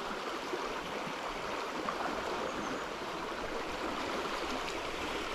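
River running high and fast over a shallow riffle: a steady, even rush of water.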